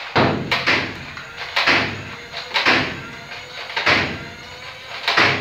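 Nerf Elite Stryfe, a battery-powered flywheel foam-dart blaster, firing about six shots at a door. Each shot is a sharp knock, often followed closely by a second as the dart smacks the door.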